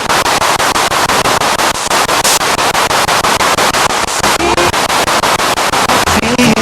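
Spirit box sweeping through radio stations: loud, choppy static broken into rapid even pulses, about eight a second, with a few brief pitched snatches of broadcast sound in the second half.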